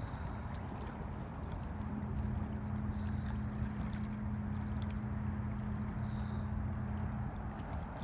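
A steady low engine hum over an even rushing noise of wind and water at the lakeshore. The hum is strongest from about two seconds in until shortly before the end.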